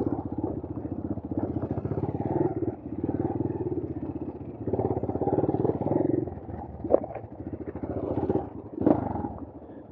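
Brozz 250 motorcycle's engine running on a trail ride, its note swelling and easing with the throttle. Two sharp knocks come through, one about seven seconds in and a louder one near the end.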